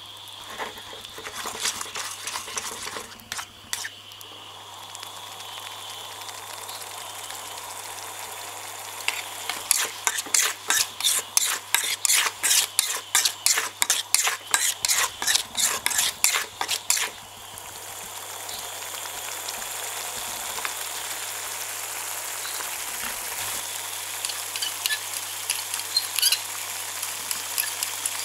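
Metal spatula stirring and scraping a thick spice sauce around a metal wok, over a steady sizzle from the pan. In the middle comes a run of quick, even scrapes, about two a second.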